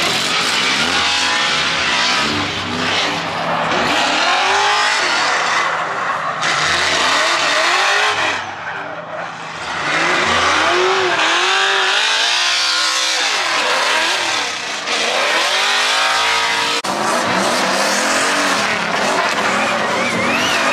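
Drift cars sliding, their tires squealing through the slides while the engines rev up and fall back again and again as the throttle is worked.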